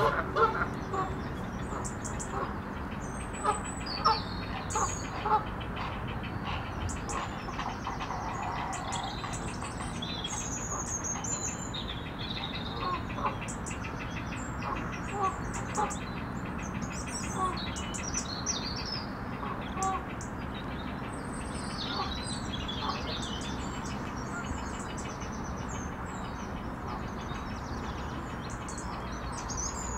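Wild birds singing and calling, many short high chirps and phrases overlapping, with some lower short calls mixed in, over a steady low background hum.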